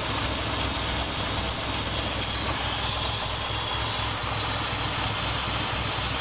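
Ford 351M V8 engine idling steadily with its new two-barrel carburetor.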